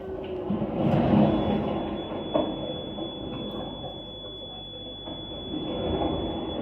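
Rumbling, rushing noise that swells about a second in, with a steady high whine setting in soon after and holding.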